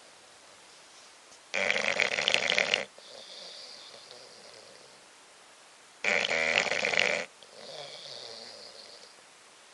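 Bulldog snoring in its sleep. There are two loud snores, each about a second long and about four seconds apart, with softer, higher, whistling breaths between them.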